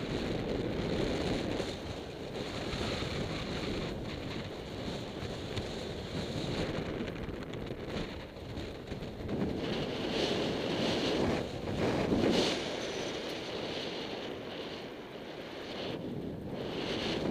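Air rushing over the microphone of a miniwing pilot in fast flight, a steady buffeting that swells and dips in gusts.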